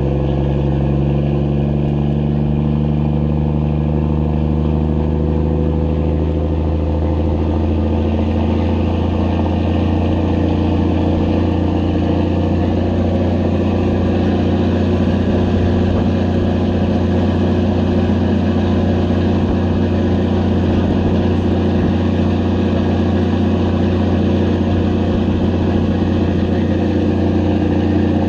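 Passenger boat's engine running under way as a steady low drone, over the rushing of the churning wake. The engine note shifts over the first several seconds, then holds steady.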